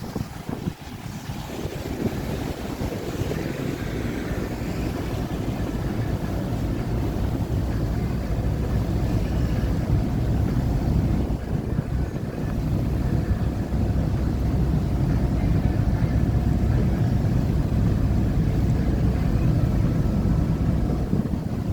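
River passenger boat's engine running, a steady low rumble mixed with water and wind noise, growing louder over the first few seconds and then holding steady.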